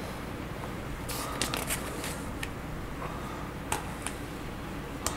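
Loose plastic Lego pieces clicking and rattling as a hand sifts through a pile of them, a quick cluster of small clicks about a second in, then a few single clicks.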